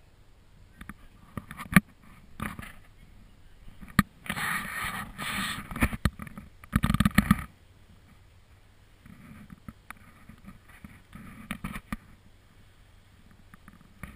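Off-road vehicle engine revving hard in repeated bursts, the loudest about seven seconds in, with a sharp knock near the start and lighter revs later on.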